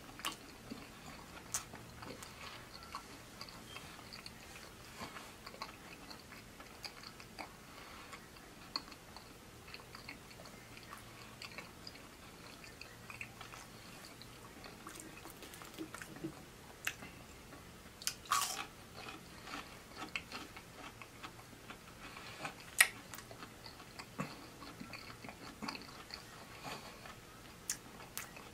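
A person chewing a mouthful of fried fast food close to the microphone, with many small mouth clicks throughout and two louder sharp ones about two-thirds of the way through.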